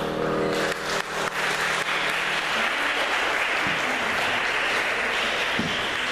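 Audience applauding, the clapping swelling in about a second in as the last note of the music dies away.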